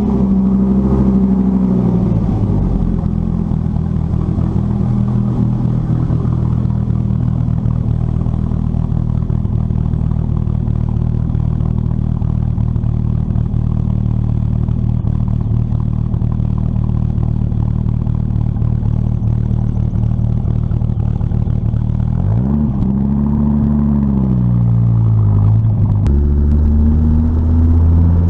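2006 Dodge Viper SRT-10's 8.3-litre V10 idling after a cold start, with a short rev near the start and then a long steady idle. About three-quarters of the way in it is revved twice, pitch rising and falling. Near the end the sound changes to the engine pulling the car along, heard from inside the cabin.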